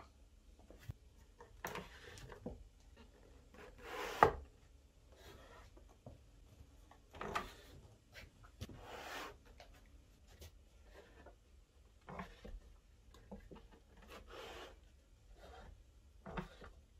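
Handling noises of a plywood rip fence on a wooden saw table: wood rubbing on wood, light knocks and clicks, and a wrench working the nut on the fence's threaded rod. One sharper knock comes about four seconds in.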